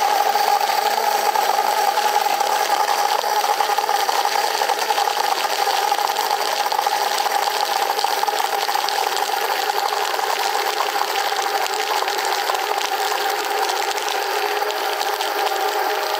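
Deerma NU06 cordless portable blender running loud and steady, its small battery motor whining as it blends ice cubes with water. The pitch and level ease slightly in the last few seconds.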